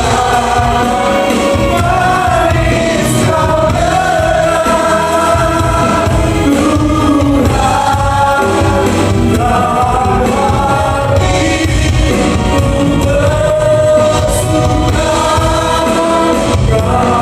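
Gospel music: a choir singing with steady instrumental accompaniment.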